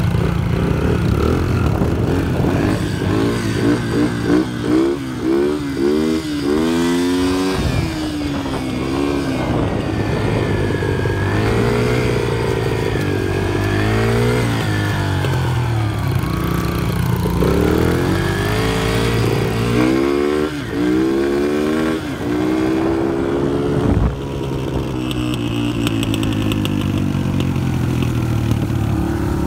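Dirt bike engine running as it is ridden, its pitch climbing and dropping again and again with the throttle.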